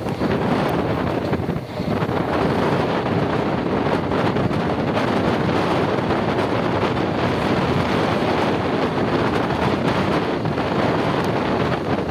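Wind buffeting the microphone held out of a moving passenger train, over the steady running noise of the train, with a brief lull a little under two seconds in.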